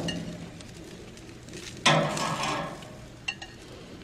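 Metal grill tongs knocking against a gas grill's grate while lifting hot dogs onto a plate. There is a sudden clatter about two seconds in that fades over about a second, and a light click later.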